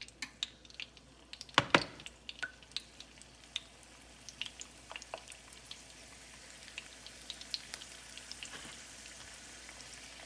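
Shrimp egg rolls frying in hot oil in a pan: scattered sharp crackles and pops as the rolls are lowered in, loudest about a second and a half in, over a sizzle that grows steadier and louder near the end.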